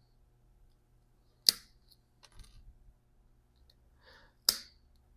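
Two sharp cracks of black walnut shell snapping as it is broken apart with hand tools, about three seconds apart, with faint rustling of shell pieces between.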